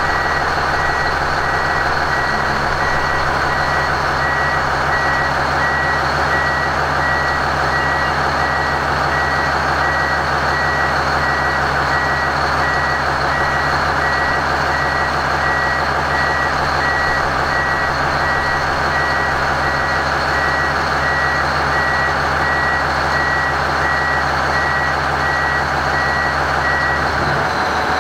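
A heavy vehicle's reversing alarm giving a steady repeated high beep over a large diesel engine running steadily; the beeping stops about a second before the end while the engine keeps running.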